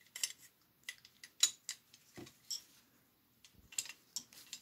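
Irregular light metallic clicks and small knocks from an M1 carbine's bolt and receiver being handled with gloved hands while someone works at lifting the bolt out. There are about eight separate clicks, with a short quiet gap just after the middle.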